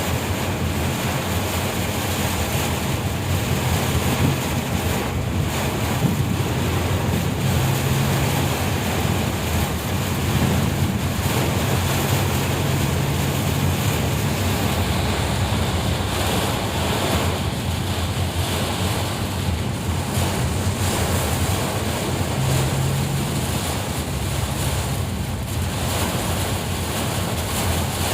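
Heavy rain: a steady, even rushing downpour with a low steady hum beneath it.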